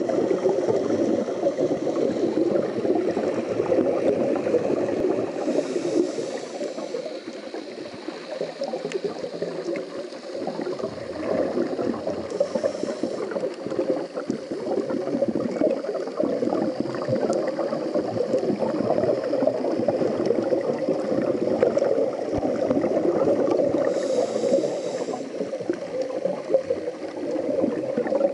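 Scuba diver's breathing heard underwater: a continuous bubbling gurgle of exhaled air from the regulator, broken by a brief hiss of inhaled breath about six seconds in, again around twelve seconds, and once more near the end.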